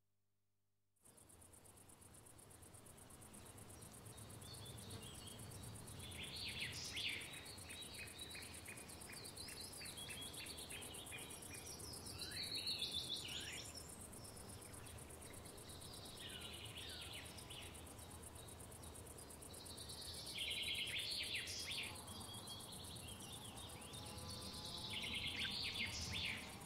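Outdoor insect ambience fading in about a second in: crickets chirring steadily, with short bird trills every few seconds.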